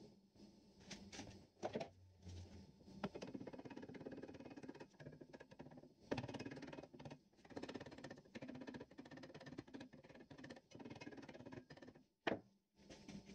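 Quiet rustling and rubbing as gloved hands handle cloth and tools at a workbench, with a few sharp clicks, the loudest near the end.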